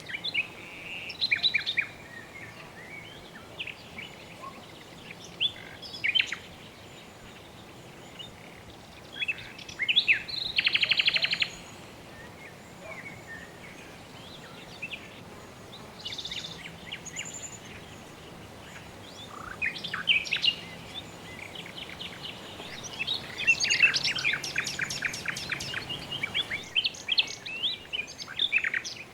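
Several birds chirping and calling in short bursts, with a rapid trill about ten seconds in and a busier run of calls near the end, over a steady faint background hiss.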